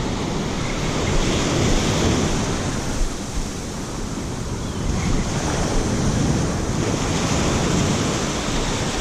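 Ocean surf washing onto the beach, swelling and easing, with wind buffeting the microphone.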